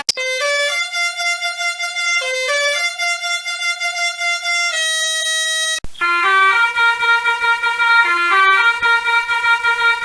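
A musical bus horn plays a melody of held, stepping notes. It is cut off just before the middle and replaced by another version of the same horn tune, louder and with a hissy, distorted edge.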